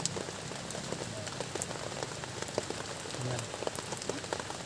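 Rain falling on a plastic tarp overhead: a steady hiss dotted with many sharp individual drop hits.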